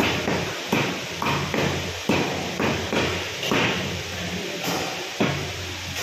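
Steel cleaver chopping through chicken onto a wooden tree-stump butcher's block: sharp chops about every half second, with a short pause around four seconds in. A steady low hum runs underneath.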